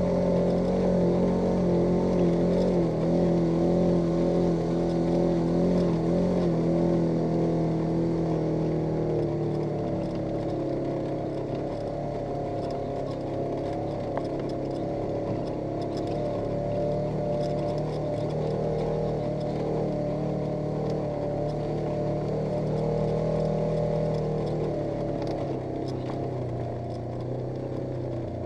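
Polaris RZR 900 S side-by-side's twin-cylinder engine running steadily while driving, its pitch and loudness easing down a little after about nine seconds and dropping again near the end.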